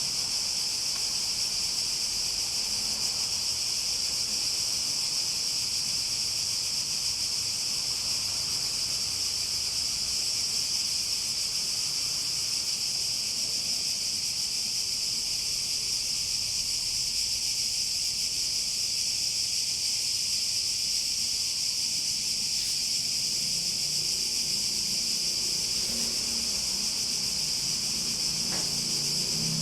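Cicadas droning in a steady, unbroken high-pitched chorus. A low rumble joins near the end.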